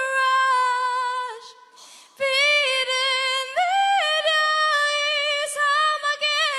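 A woman singing a cappella, holding high notes with vibrato and stepping up in pitch, with a short breath break about a second and a half in.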